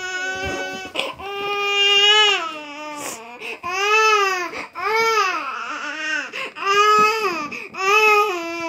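Six-month-old baby crying in a series of wails, each about a second long, rising and falling in pitch with short catches of breath between.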